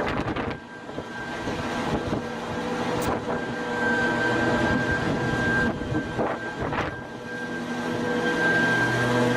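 Heavy machine engine running steadily, a constant drone with a few brief dips in level.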